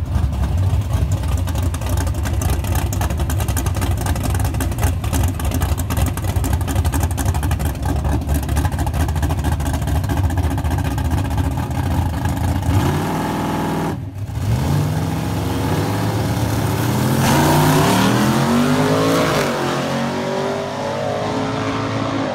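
Turbocharged Nissan S13 drag car's engine running at the starting line with a rough, choppy idle, then revving up and launching, its pitch climbing in several rising sweeps through the gears as it pulls away down the track.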